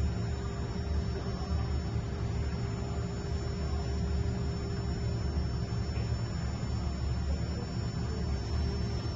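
Steady low electrical hum with a faint hiss over it, unchanging throughout.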